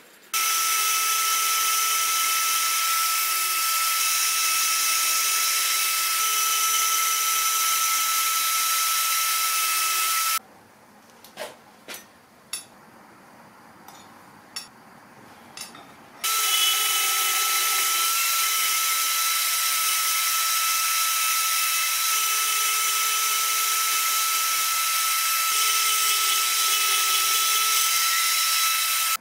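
Bandsaw cutting a metal plate: a steady high whine over a hiss. About ten seconds in it stops abruptly, leaving a few light clicks and knocks for about six seconds, then the cutting resumes just as abruptly.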